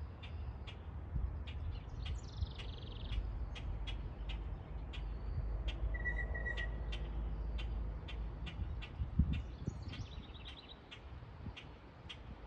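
Small songbirds chirping, with short high chirps repeated about twice a second and a couple of brief falling song phrases. A low rumble runs underneath.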